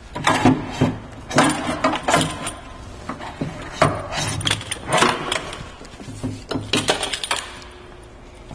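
Irregular clinks and knocks of equipment being handled as the foam pickup hose is taken off a fire engine, stopping about a second before the end.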